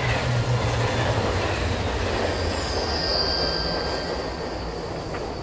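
Subway train running through the station: a steady rushing rumble with a high wheel squeal about halfway through, the noise easing away near the end.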